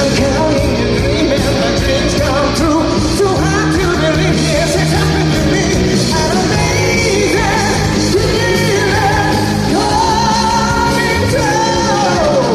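Live rock band playing loudly, with a male lead voice singing over it and holding a long, wavering note about ten seconds in.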